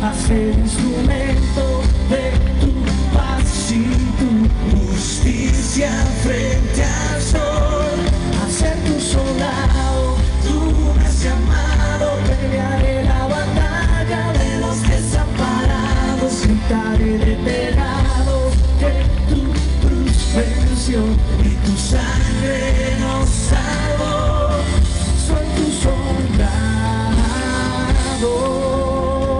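Live pop music: a male vocal group singing into microphones over a band with a steady drum beat and heavy bass.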